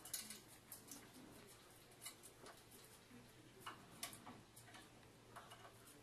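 Faint, irregular clicks and taps from an African grey parrot climbing a metal wire perch, its beak and feet gripping the wire.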